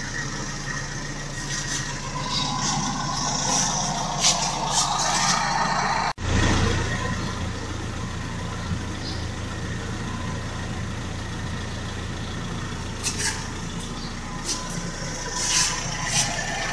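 Toyota 4K four-cylinder carburetted engine idling steadily, heard close with the hood open, with scattered light ticks. The sound breaks off sharply for an instant about six seconds in, and the low hum is heavier after the break.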